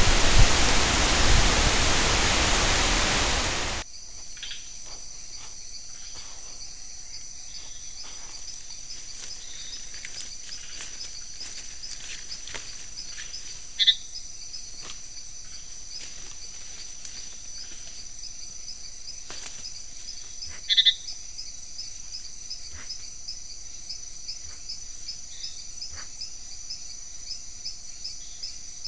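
Wind and rain on a trail camera's microphone as a loud, even rush for the first few seconds, cut off abruptly. Then a night forest chorus of crickets and other insects, a steady high-pitched pulsing trill with faint clicks, broken twice by a short, sharp animal call.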